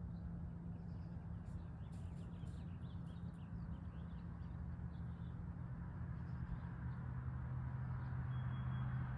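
Small birds chirping in short scattered calls over a steady low engine hum, with a wider rushing noise growing louder near the end.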